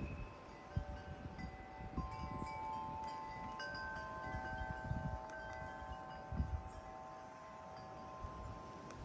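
Wind chimes ringing, several metal tones sounding at different pitches, overlapping and each held for a few seconds.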